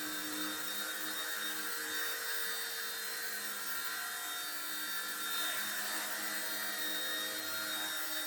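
Firefox C129 micro RC helicopter hovering: a steady whine of its small electric motor and spinning rotor blades, holding an even pitch throughout.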